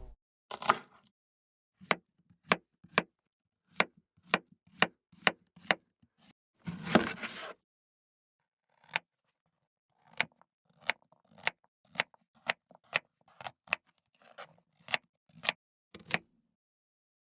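Kitchen knife chopping: a series of sharp, separate chops, about one to two a second, with one longer slicing scrape about seven seconds in.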